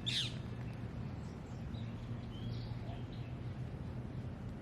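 A bird calls once with a quick note sweeping down in pitch at the start, followed by a few fainter chirps, over a steady low hum.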